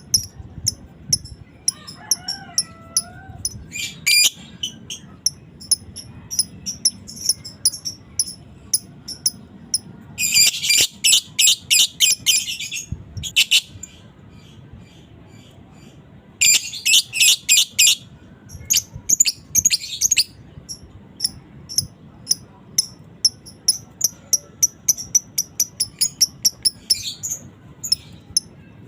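Lovebird chattering in rapid strings of high, sharp chirps, the long 'ngekek' call of a fighter lovebird, with denser, louder runs about ten seconds in and again a few seconds later.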